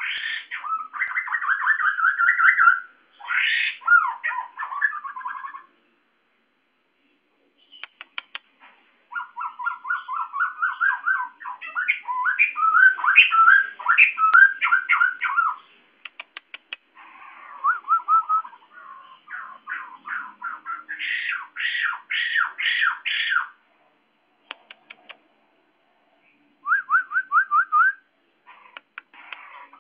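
White-crested laughingthrush calling loudly in long bouts of rapid, repeated chattering notes lasting several seconds each, with a couple of short silent pauses between bouts.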